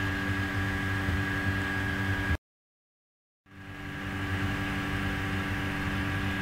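Steady background hum and hiss of the recording, with several constant tones in it, cutting out to dead silence for about a second a little over two seconds in, then fading back in.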